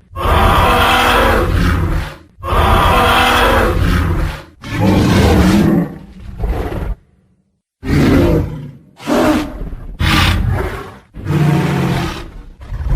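Tyrannosaurus rex roar sound effects: three long, loud roars of about two seconds each, then a lower growl and a brief silence about seven seconds in, followed by a run of shorter roars.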